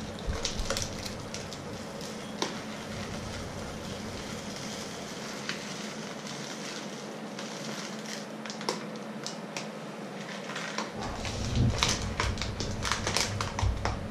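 Plastic bag crinkling and rustling as its contents are shaken into a small bowl, with crackles all through and a busier flurry near the end.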